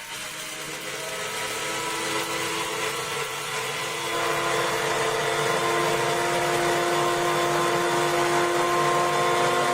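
Electric blade coffee grinder with stainless steel blades running, grinding a spoonful of coffee beans into a steady whir. Its tone shifts and it grows louder about four seconds in.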